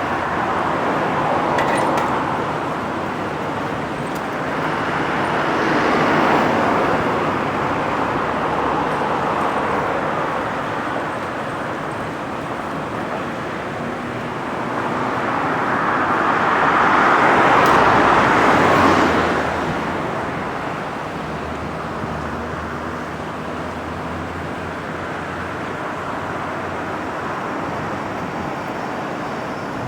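City road traffic: a steady wash of passing cars that swells twice, about six seconds in and again around eighteen seconds in.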